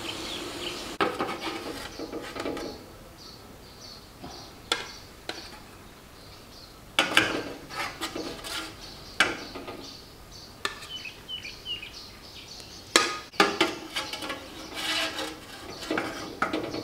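A metal spatula clinking and scraping against an aluminium steamer's perforated tray as steamed chicken pieces are lifted out onto a plate: a string of sharp knocks and scrapes a few seconds apart.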